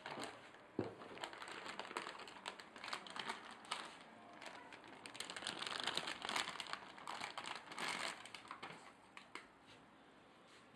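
Packaging being handled and crinkled: irregular rustling and small clicks, busiest a little past the middle.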